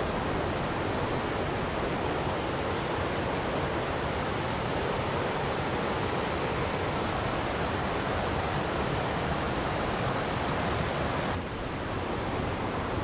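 Velo de Novia waterfall at El Chiflón: a steady, even rush of falling water. It drops a little in level about eleven seconds in, then carries on steadily.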